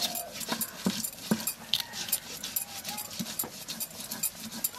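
Raw eggs cracked with a knife edge over a steel bowl: repeated sharp taps and shell cracks, with clinks of the metal bowl. Faint animal calls in the background.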